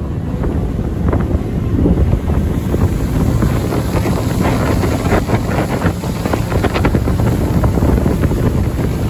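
Wind buffeting the microphone over the steady engine of a rigid inflatable boat under way.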